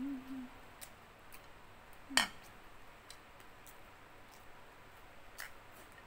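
Eating and dish-handling noises: a sharp click about two seconds in, then a few faint ticks and taps while a plate is handled.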